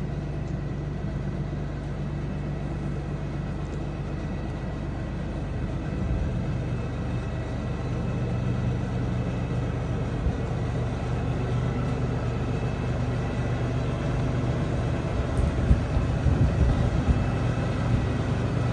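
Compact diesel tractor's engine running steadily as the tractor drives slowly closer, growing gradually louder. A few short knocks come near the end.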